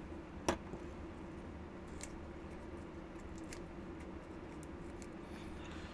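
Light clicks of metal parts being handled as a home-built hydraulic power cylinder is taken apart: one sharp click about half a second in, then a few fainter ticks, over a low steady hum.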